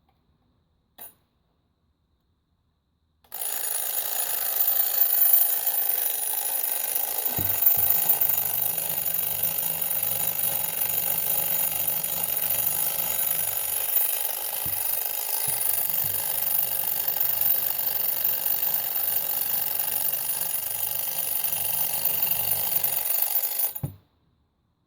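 Vintage Westclox twin-bell mechanical alarm clock ringing, its hammer clattering between the two bells without a break for about twenty seconds, then cutting off suddenly. A single faint click comes a couple of seconds before the ringing starts.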